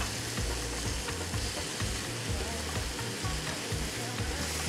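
Thin, pounded chicken pieces sizzling steadily as they fry in oil in a pan.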